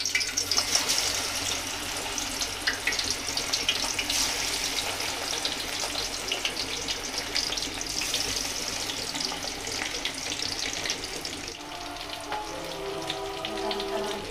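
Marinated fish pieces deep-frying in hot oil: a steady crackling sizzle full of small pops and spatters, as fresh pieces are lowered into the oil one by one.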